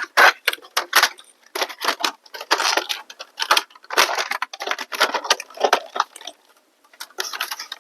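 Repeated clattering, clicking and scraping of plastic and metal parts being handled as the PlayStation 4 Slim's power supply is fitted back into the console, with short quiet gaps near the end.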